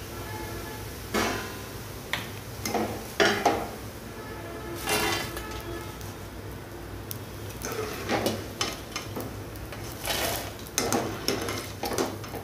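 Wire-mesh frying skimmer knocking and scraping against a metal kadai and plate in irregular clinks as fried corn flakes are lifted out of hot oil, with a light sizzle of the oil.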